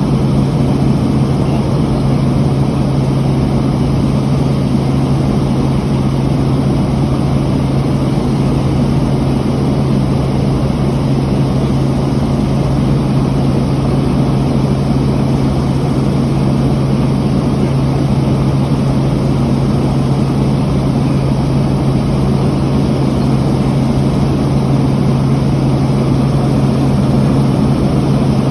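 Helicopter in flight: a loud, steady drone of engine and rotors with a strong low hum, unchanging throughout.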